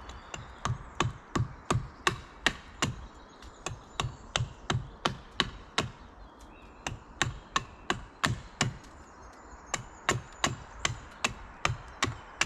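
Rapid, regular chopping blows into wood, about three strikes a second, with a short pause about halfway through.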